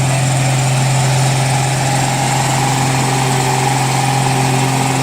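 A steady engine idling sound: an even low hum with hiss above it, unchanging in pitch and level.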